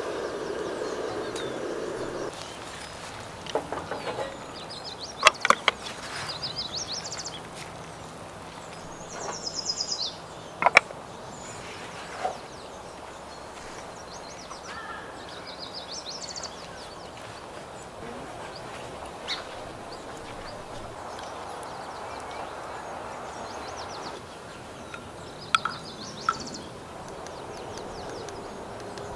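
A bird calling outdoors in short, rapid, falling trills, repeated every few seconds, with a few sharp clicks and knocks in between. A steady hum stops about two seconds in.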